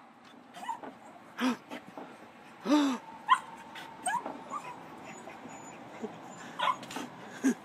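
Small dog giving a series of short yips and barks, about half a dozen spread out, with a few high whines in between.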